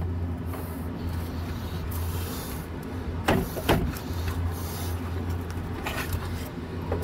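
Plastic rubbing and scraping as a replacement electric cooling fan shroud is worked into place behind the radiator, over a steady low hum, with two brief louder sounds a little past the middle.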